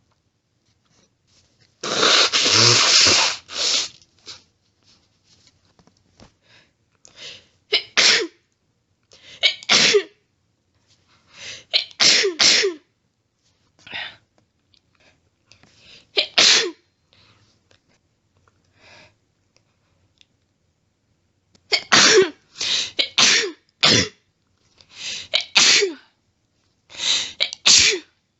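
A person in an allergy sneezing fit: a long run of rapid, sharp sneezes coming in clusters of two to four, with faint sniffs between them. About two seconds in there is a longer, noisier blast lasting over a second.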